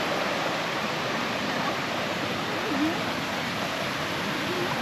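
Steady rushing of a forest stream and waterfall: an even, unbroken hiss of falling and flowing water.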